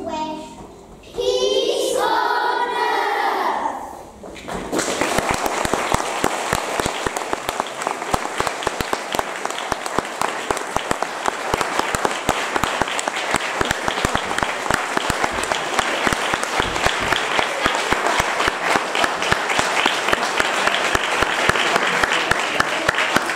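A few seconds of children's voices singing, then about four seconds in a large audience breaks into sustained clapping that lasts to the end.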